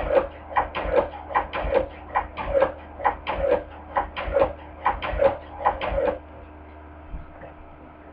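Hand-crank cobbler sewing machine stitching, a steady clacking rhythm of about two knocks a second that stops about six seconds in.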